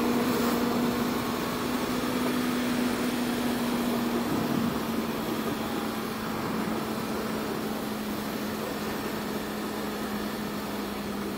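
Wind rush with a Honda CB650F's inline-four engine humming at a steady highway cruise. The engine note drops slightly about halfway through.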